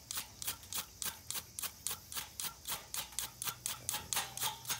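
A ferrocerium fire-starter rod (fire steel) scraped over and over with a striker to throw sparks onto straw: quick, sharp rasping strokes in an even rhythm of about five or six a second.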